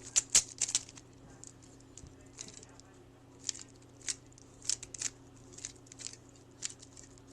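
Rubik's cube being turned quickly by hand in a solve: irregular quick plastic clicks and clacks as the layers snap round, loudest in a flurry in the first second. A faint steady low hum runs underneath.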